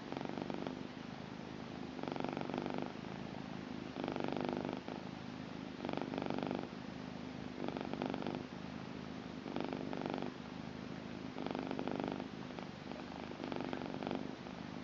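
Blue British Shorthair cat purring steadily, close up, swelling louder with each breath about every two seconds.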